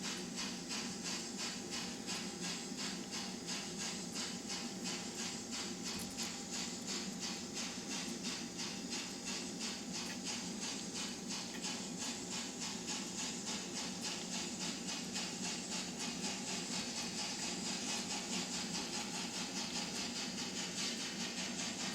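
Steady, rapid rhythmic steam chuffing with hiss from a LokSound DCC sound decoder in an N scale Trix Bavarian S 3/6 four-cylinder steam locomotive model, played through the model's tiny speaker, which gives it a thin sound with no bass.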